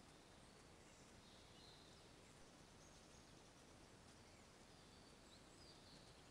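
Near silence: faint steady hiss, with a few faint, short, high bird chirps.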